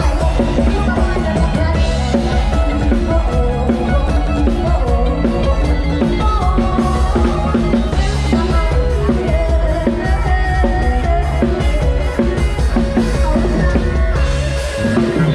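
Loud, steady Lam Sing band music: a melody on electronic keyboard over a driving drum kit and heavy bass.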